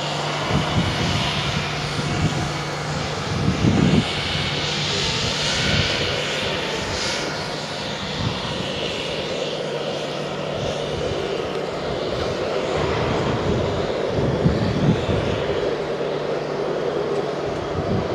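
Class 66 diesel locomotive and its freight train moving away along the track: a steady drone of engine and wheels on rail that stays fairly even throughout.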